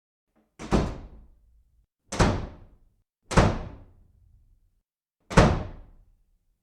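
Four loud thuds or slams, spaced unevenly one to two seconds apart, each dying away over about half a second.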